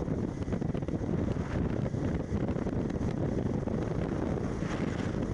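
Wind buffeting the microphone of a camera on a motorcycle moving at road speed, a steady low rush mixed with the motorcycle's running noise.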